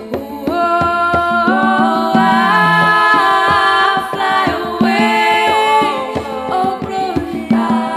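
Recorded music with singing, several parts holding long notes in harmony.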